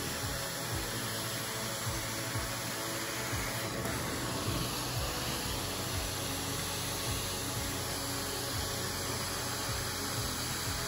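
Background music with a beat over a steady rushing hiss of a hot-water carpet extraction wand spraying and sucking water from the carpet.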